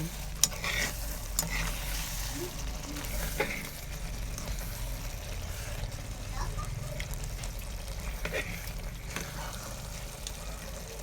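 Spoon gently stirring thick egusi soup in a pot, with a few sharp clicks of the spoon against the pot, the loudest about half a second in.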